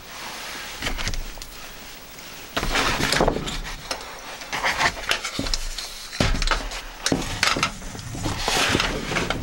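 Irregular rubbing and scraping handling noises with a few knocks, as a plastic laptop cooling pad and the camera are moved about.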